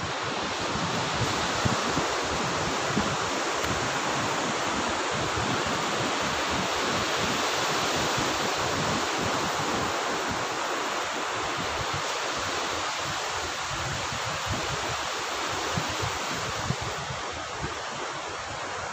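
Sea surf breaking and washing up a sandy beach: a steady, continuous rush of waves.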